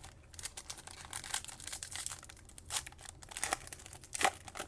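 Handling of a football trading-card pack and its cards: the wrapper crinkling and tearing, and cards rubbing and clicking against each other, with a couple of sharper snaps near the end.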